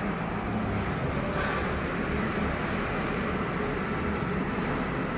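Steady urban background noise: distant road traffic as an even, low rumble with no distinct events.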